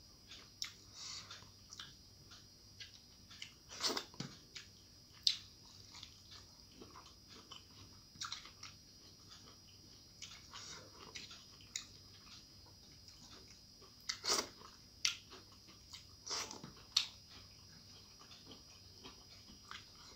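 Eating by hand: fingers mixing rice on a plate and mouth sounds of chewing and smacking, as scattered short clicks with a few louder smacks.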